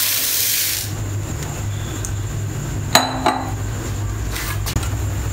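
Dry parboiled rice poured from a glass bowl into a plastic bowl: a brief hiss of running grains, then about three seconds in a sharp ringing clink as the glass bowl is set down on the counter, with a lighter knock just after.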